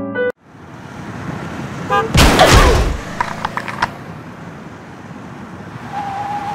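Dubbed car sound effects for a Lego toy car driving in: road noise, a loud burst of engine noise about two seconds in followed by a few clicks, and a steady horn-like tone near the end. Piano music cuts off at the very start.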